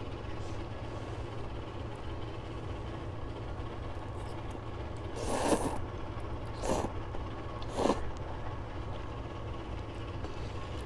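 A person slurping instant ramen noodles: three slurps in the middle, the first the longest, over a steady low hum.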